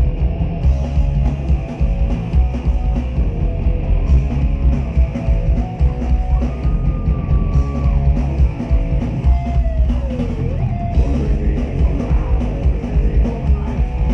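Live heavy metal band playing: distorted electric guitars, bass and a drum kit. The drums come in hard right at the start, and a couple of held notes bend in pitch midway.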